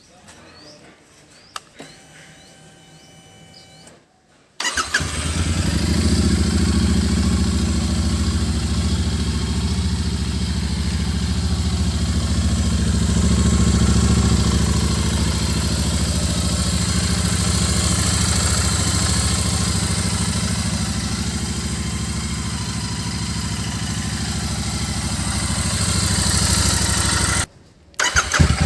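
Royal Enfield Interceptor 650's parallel-twin engine starting about four and a half seconds in, then idling steadily. The sound cuts out abruptly for under a second near the end, then comes back.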